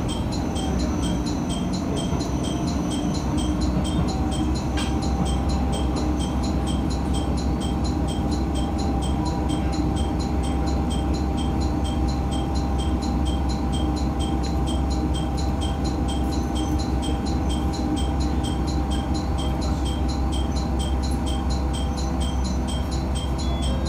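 Matsuura Railway MR-600 diesel railcar running, heard from inside the car: a steady low engine and running rumble with a faint steady whine over it.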